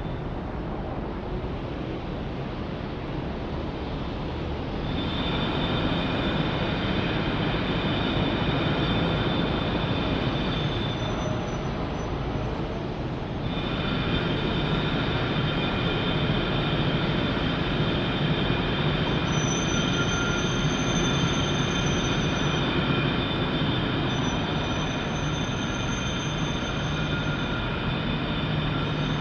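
A train running, a continuous rumble with steady high-pitched whining or squealing tones over it that fade out twice and come back.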